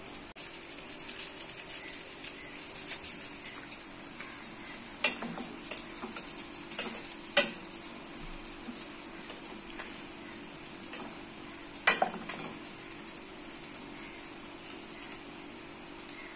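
Metal ladle stirring fish curry in a stainless steel pot, with a few sharp clinks of the ladle against the pot about five, seven and twelve seconds in, over a steady soft hiss and a low hum.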